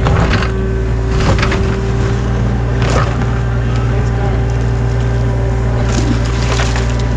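Mini excavator's diesel engine running steadily as its bucket digs in wet clay, with a few scrapes and knocks of the bucket against soil and stone.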